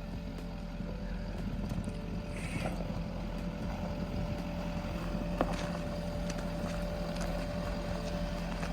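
Vehicle engine running with a steady hum. A brief hiss about two and a half seconds in, and a single sharp click about five and a half seconds in.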